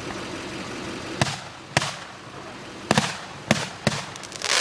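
Bundled consumer firework mortars going off inside an old refrigerator: a steady hiss, then five sharp bangs spaced over about three seconds, and a loud rush of hiss near the end.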